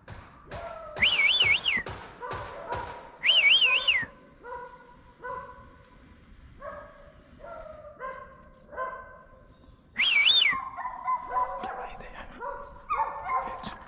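Dogs barking in short, repeated barks that fall in pitch. A loud warbling whistle cuts in three times, about one second, three seconds and ten seconds in.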